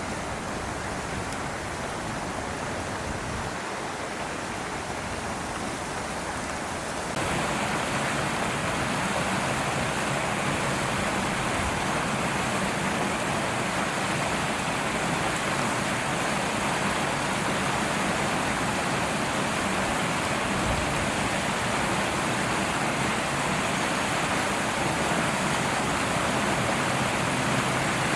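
Steady rushing noise with no distinct events, stepping up in level about seven seconds in.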